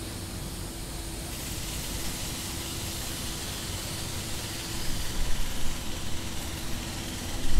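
Steady background rumble and hiss of distant traffic, with a constant low hum; the hiss swells after about a second and a half.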